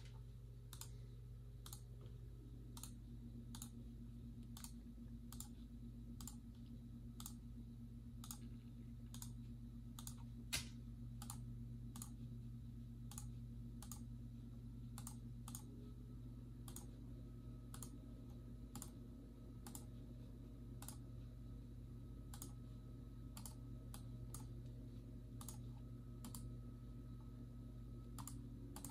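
Faint, uneven clicking of a computer's mouse and keys being worked, about one to two clicks a second, with one sharper click near the middle, over a steady low hum.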